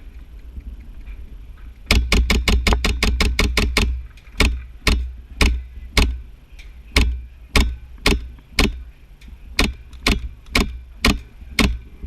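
Gas-blowback airsoft MP7 firing: a quick string of about a dozen shots over two seconds, then single shots every half second to second and a half, each a sharp crack with a low thump of the blowback.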